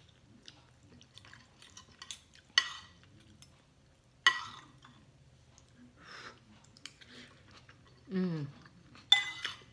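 Metal spoon and fork clinking and scraping against a ceramic plate while eating rice: three sharp ringing clinks, about two and a half seconds in, just after four seconds and near the end, with quiet chewing and small ticks between. A short falling "mm" from the eater about eight seconds in.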